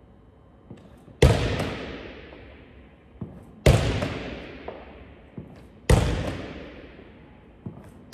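A basketball slammed against a wall in repeated chest passes: four loud impacts about two and a half seconds apart, each echoing around a large sports hall. Fainter knocks come between them as the ball comes back.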